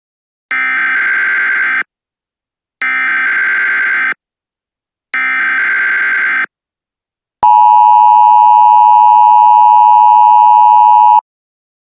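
Emergency Alert System tones: three short, raspy SAME header data bursts, each a little over a second long, then the steady two-tone EAS attention signal held for nearly four seconds. Together they announce the start of an emergency alert broadcast.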